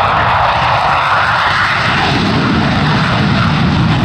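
F-16 fighter jet's single afterburning turbofan engine at full afterburner during a takeoff run and lift-off: a loud, steady jet noise that deepens about halfway through.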